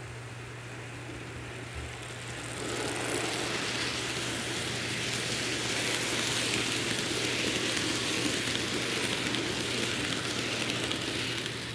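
Kato N scale train, led by its FEF-3 steam locomotive, rolling by on model track: a steady rolling rattle of small wheels on rails. It grows louder about two and a half seconds in as the cars pass close, over a steady low hum.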